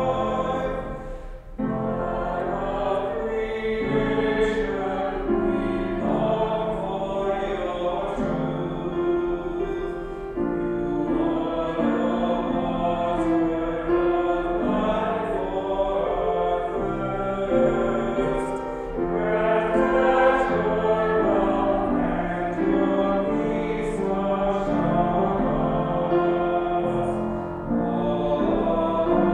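A vocal trio, one woman and two men, singing in harmony, with a short break about a second and a half in.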